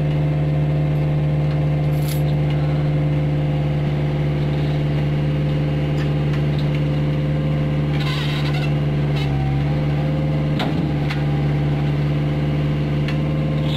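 Hitachi mini excavator's diesel engine running steadily, working its hydraulics as the boom and bucket move. There is a short hiss about eight seconds in, and a few sharp metal knocks later.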